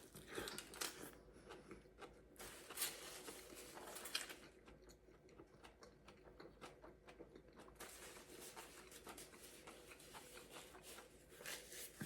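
Faint biting and chewing of a short rib burrito, with soft, irregular crunches and mouth sounds.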